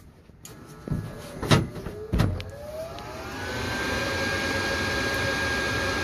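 A few clunks as the furnace's front panel goes on. Then, about two and a half seconds in, the gas furnace's draft inducer motor starts, its whine rising in pitch and settling into a steady run.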